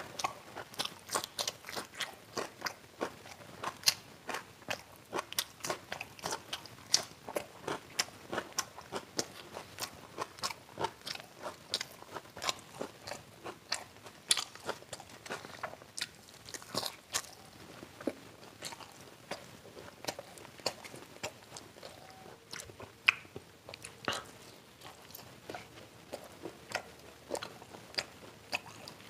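Close-miked crunching and chewing of crisp deep-fried pakoras and fritters: a quick, irregular run of sharp crunches, several a second.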